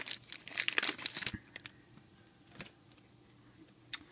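Packaging crinkling and tearing as the next stack of trading cards is unwrapped, lasting about a second and a half, followed by a couple of faint clicks.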